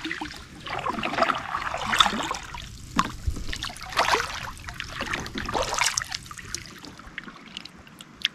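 Double-bladed kayak paddle strokes swishing and splashing in calm water, about one every one to two seconds. Near the end the strokes stop and water drips and patters off the paddle blades.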